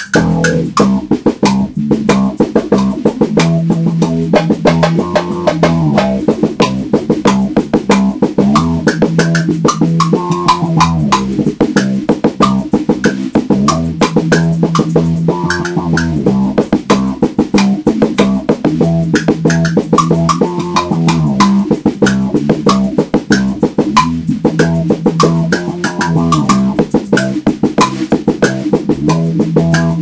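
Instrumental music: bass guitar and guitar over a steady drum-kit beat.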